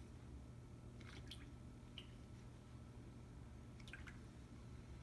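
Near silence over a low steady hum, with a few faint wet squishes and drips as epoxy putty is troweled onto a steel plate underwater, about one, two and four seconds in.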